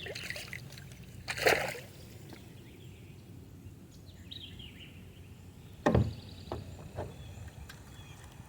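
Water splashing and sloshing beside a kayak as a small hooked fish is brought in, with one short splash about a second and a half in. A knock on the kayak's hull follows about six seconds in, along with a few smaller knocks.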